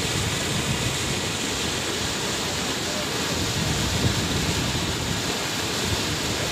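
Muddy floodwater rushing down a swollen stream, a steady roar with wind buffeting the microphone.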